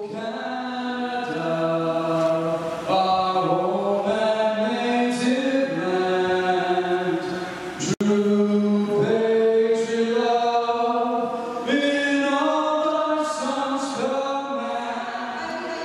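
A solo voice singing unaccompanied into a microphone over the arena's PA, holding long notes that step from pitch to pitch, with a short breath break about halfway through.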